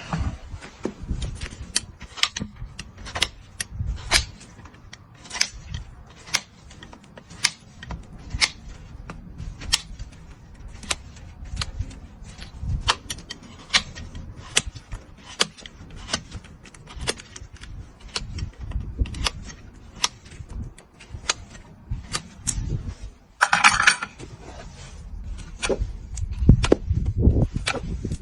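Farrier's tools working a horse's hoof: a run of sharp clicks and snaps, irregular at about one to two a second, with a brief louder scraping rasp about three-quarters of the way through.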